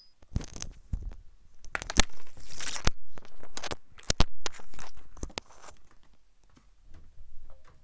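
Handling noise close to the microphone: clothing rustling with a run of sharp knocks and clicks as someone moves right up against the webcam and mic, dying away over the last couple of seconds.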